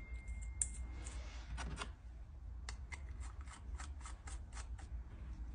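Small flat-blade screwdriver screwing the main jet into an outboard carburettor body: a run of faint, light clicks, about four a second.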